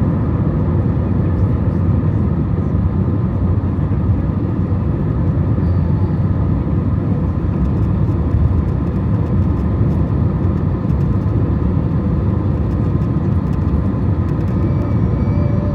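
Steady low rumble of an Airbus A321 airliner's jet engines, level throughout, with a faint steady whine above it.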